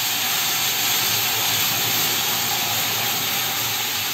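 Water hitting gram flour (besan) roasted in hot ghee in a pan, hissing and sizzling loudly as it turns to steam, the hiss slowly dying down.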